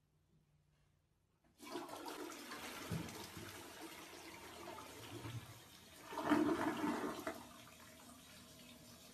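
Toilet flushing: water starts rushing into the bowl about a second and a half in, swells loudest around six seconds in, then eases to a quieter steady flow.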